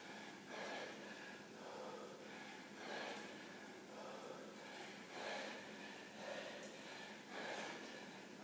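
Faint, heavy breathing of a man straining through overhead kettlebell swings: forceful, noisy breaths about once a second, in time with the swings.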